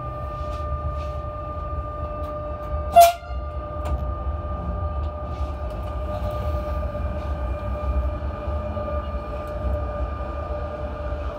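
Electric commuter train heard from its driving cab as it moves slowly, with a steady low rumble and a constant whine. About three seconds in there is one short, loud, sharp sound.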